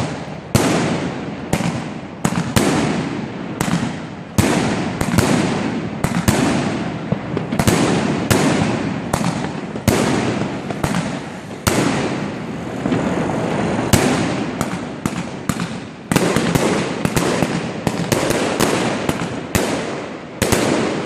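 Fireworks going off in a dense barrage: a steady run of sharp bangs, one or two a second, each trailing off with a long echo.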